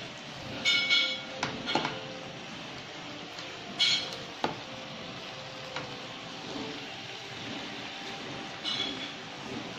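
Spatulas stirring and tossing tteokbokki rice cakes and shredded cabbage in a stone-coated wok, with a steady hiss underneath. Sharp clinks of the utensils against the pan come about a second in, again near four seconds and near the end.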